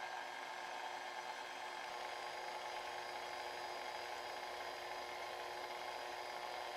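KitchenAid Ultra Power Plus stand mixer running steadily, its flat beater turning through thick banana bread batter.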